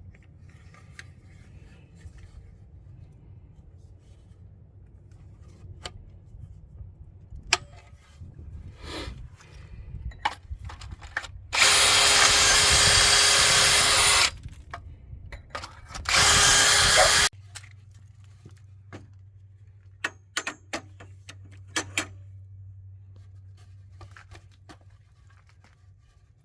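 A power drill boring a pocket hole into wood with a pocket-hole bit. It runs in two bursts, one of about two and a half seconds and then a shorter one of about a second, with scattered light clicks and knocks before and after.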